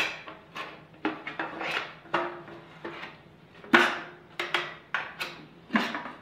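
Metal paint can lid being pried off with a screwdriver: irregular sharp metallic clicks and clinks as the tool levers at the rim, a few of them ringing briefly.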